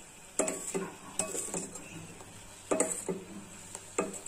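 Steel spoon scraping and clinking against the sides and bottom of a steel pan while stirring thick cooking ragi (finger millet) porridge, stirred constantly to keep it from sticking to the pan. Irregular taps and scrapes, the loudest about half a second in and near three seconds.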